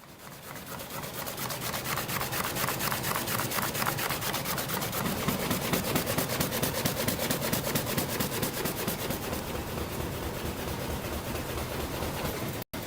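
A woodworking machine working wood: a steady, fast rhythmic rasping of a cutter or abrasive against timber, fading in at the start and broken by a brief dropout near the end.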